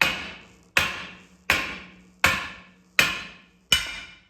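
Six hammer blows on the pinion of a Sterling 10.5 rear axle, about three-quarters of a second apart, each a sharp metallic strike with a ringing tail, driving the pinion out of the axle housing.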